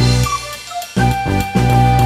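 Background music: pitched instrument notes over a strong bass line, with a steady beat.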